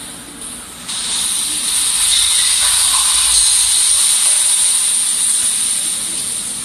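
Steady, loud hiss with no tune or voice in it, stepping up in level about a second in.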